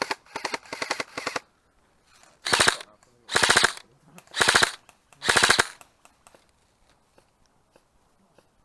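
Airsoft rifle firing on full auto: a few short bursts, then four longer bursts of rapid shots, stopping about six seconds in.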